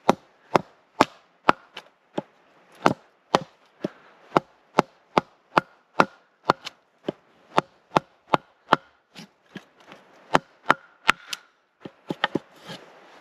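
Carved wooden mallet striking the back of a hatchet again and again, about two blows a second, driving the blade into a log to knock out a notch.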